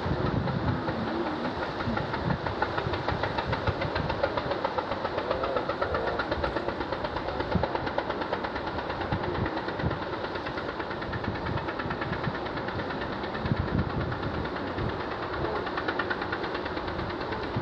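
A fishing boat's engine running steadily with a fast, even pulsing beat.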